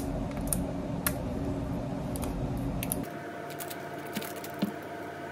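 A plastic shrink seal crinkles as it is peeled off a plastic kimchi jar, with sharp clicks and taps as the jar and its lid are handled. A steady low hum stops abruptly about three seconds in.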